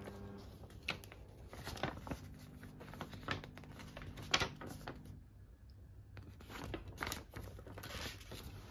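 Folded paper brochure being opened, turned and folded again in the hands, with soft scattered rustles and crinkles of paper.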